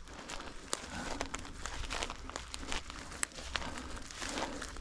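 Irregular rustling and crackling with scattered sharp clicks.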